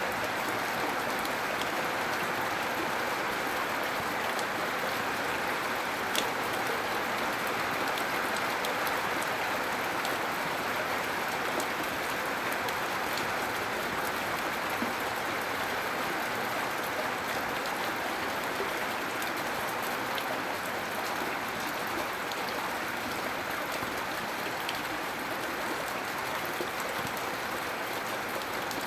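Gentle, steady rain falling, a constant soft hiss with a few faint drop ticks.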